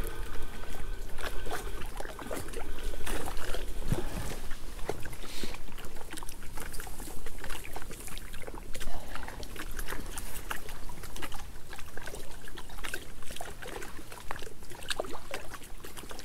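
Water splashing and trickling as a hooked small common carp is played in at the surface, with irregular clicks and knocks from the tackle being handled.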